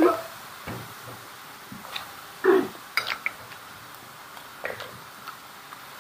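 Scattered clinks and knocks of tableware and a metal wok and spatula, several short separate strikes, the loudest about halfway through, over a low steady background.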